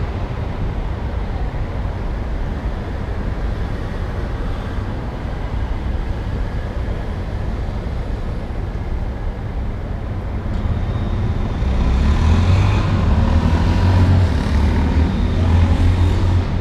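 City street traffic: a steady wash of cars passing. About twelve seconds in, a vehicle's engine comes close and gets louder, a low hum that stays strong to the end.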